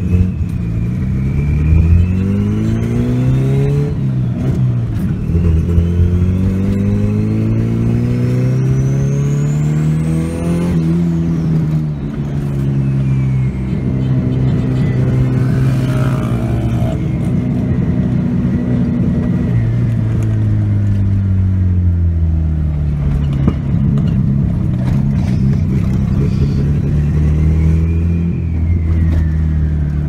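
Turbocharged Subaru Justy's three-cylinder engine heard from inside the cabin, rising in pitch as it accelerates for about ten seconds with a high turbo whistle climbing alongside. It then drops off, holds steady for several seconds, and rises and falls again twice.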